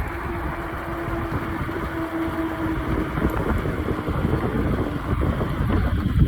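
Strong gusty wind buffeting the microphone during an e-bike ride, a dense low rumble. A faint steady hum sits under it and fades out about two and a half seconds in.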